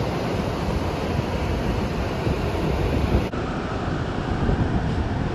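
Wind buffeting the microphone over the wash of surf on a beach, a steady rumbling noise. Its character changes abruptly a little over three seconds in.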